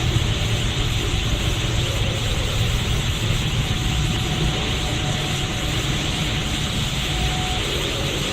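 Anime power-aura sound effect: a steady, continuous rumbling roar with a crackling hiss on top, the Super Saiyan God aura.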